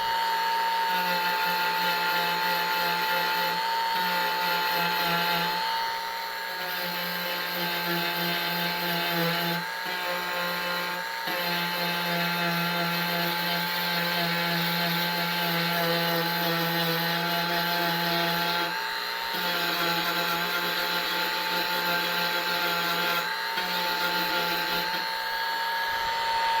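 Dremel rotary tool running at high speed with a steady whine, working over plastic weld seams on a blow mold; its pitch dips briefly a few times as the bit bears on the plastic.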